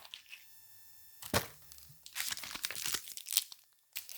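Snack packaging being torn open and crinkled: a few separate crackles, then a dense run of crinkling for about a second and a half, and one more crack near the end.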